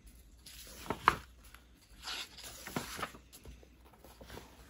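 Paper pages of an old book being handled and turned, soft rustling and swishing several times, with a sharp tap about a second in.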